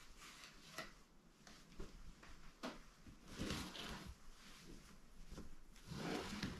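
Faint rubbing and rustling with scattered light knocks and a sharp click, like objects being handled in a small room.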